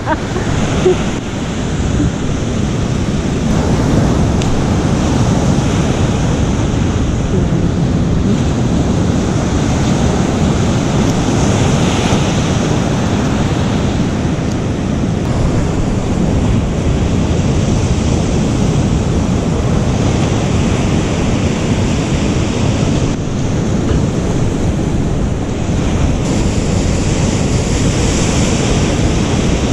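Ocean surf breaking and washing steadily on a beach, loud and continuous, with wind buffeting the microphone.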